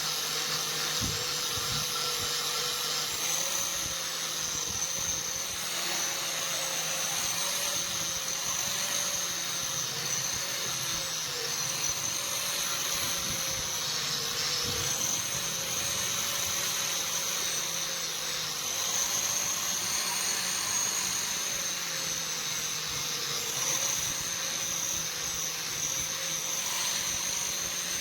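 Electric motor running steadily with a whining hum whose pitch wavers slightly.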